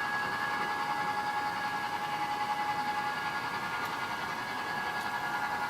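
Diesel engine sound from an HO-scale model locomotive's DCC sound decoder, playing through its small onboard speaker. It runs steadily at an even level, with a steady high whine over the engine noise.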